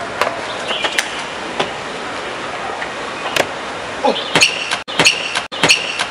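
Sharp slaps and scuffs of sneakers landing and hands striking concrete ledges as a traceur vaults over and jumps between low planter walls, spaced irregularly over a steady outdoor hiss. The impacts come denser near the end, with a few short squeaks, and the sound drops out briefly twice.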